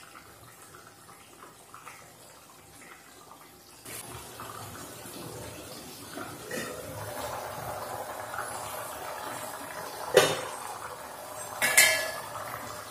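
Chicken gravy simmering in an aluminium pot, its bubbling getting louder once the lid is lifted about six seconds in. Two sharp metal clanks from the pot's lid near the end.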